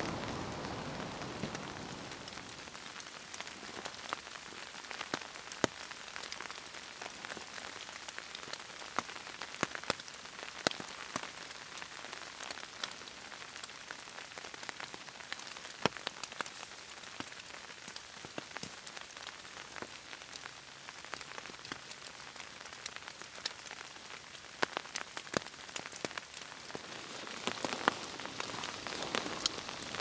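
Steady rain falling, with many single drops ticking sharply and irregularly over the even hiss of the downpour.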